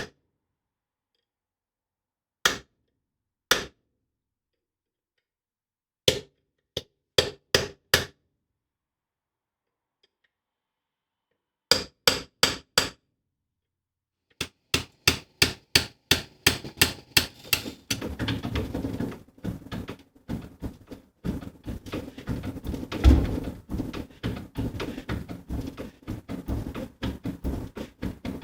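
Hammer blows on the Land Rover Series 2 differential case as the old pinion bearing is driven out: single sharp metallic strikes, a few seconds apart, then in quick groups that speed up. From about eighteen seconds in, new bearings are being driven in, with rapid knocks over a steady low rumble.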